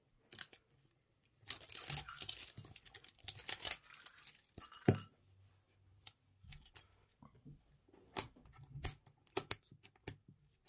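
Clear plastic shrink-wrap being torn and peeled off a Pokémon Luxury Ball tin: a few seconds of crackling and tearing starting about a second and a half in, followed by scattered clicks and taps as fingers handle the tin.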